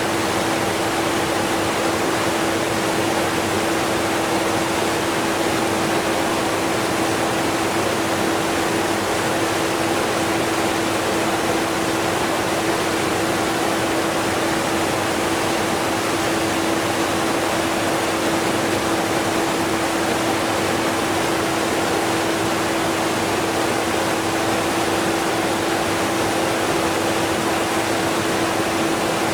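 Strong waterfall rushing steadily, mixed with a vacuum cleaner running faintly beneath it as a steady hum.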